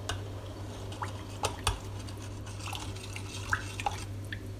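Metal spoon stirring melting butter in a stainless steel saucepan, clinking against the pan in several short sharp clicks over a steady low hum.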